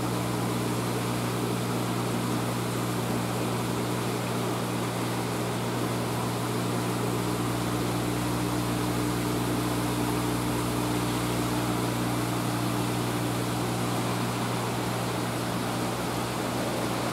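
Steady mechanical hum of aquarium pump and filtration equipment, several low fixed tones over an even hiss, unchanging throughout.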